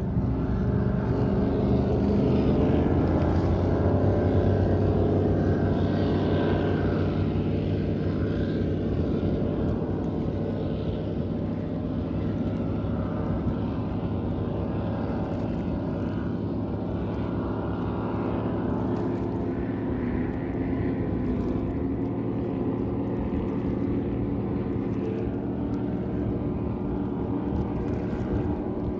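Cigarette-style offshore powerboats running flat out across the water, their engines a steady, deep drone. It is loudest a few seconds in and slowly fades as they pull away.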